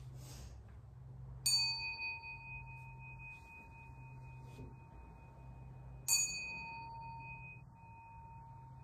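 Buddhist bowl bell struck twice, about four and a half seconds apart, each strike ringing on in a long, slowly fading tone; rung to mark the officiant's prostrations before the altar.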